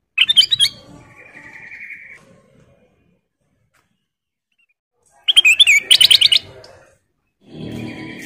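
Kutilang emas bulbul calling: a burst of sharp, quick chirps at the start, then a short buzzy trill. About five seconds in comes another burst of rapid chirps.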